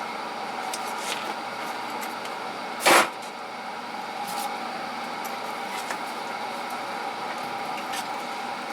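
Parts and tools being handled and sorted into a toolbox drawer: one sharp clank about three seconds in and a few light clicks, over a steady background hum.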